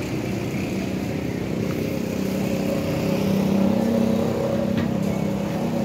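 A motor vehicle engine running steadily close by, growing louder toward the middle and easing off near the end.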